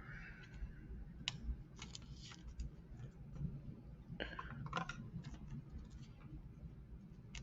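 Faint, scattered clicks and brief rustles of trading cards being handled, over a steady low hum.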